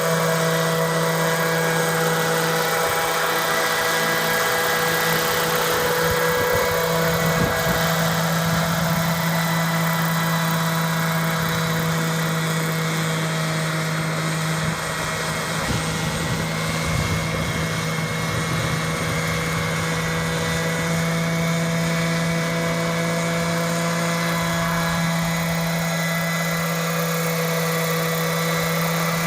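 Large-scale RC Bell 205 Huey helicopter in flight, its Zenoah G26 two-stroke petrol engine and 2.2 m main rotor running at a steady pitch.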